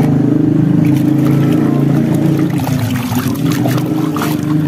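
Muddy water sloshing and splashing in a plastic tub as a toy car is swished through it to wash it, with a steady low hum underneath.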